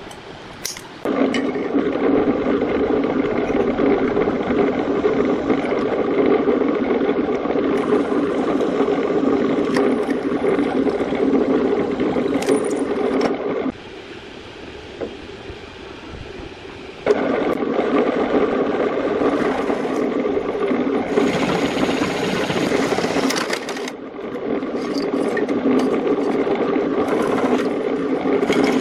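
Bench drill press motor running steadily with a carbide-tipped hole saw, stopping for a few seconds partway through. After it starts again there is a harsher, hissing stretch as the cutter bores into a steel square tube.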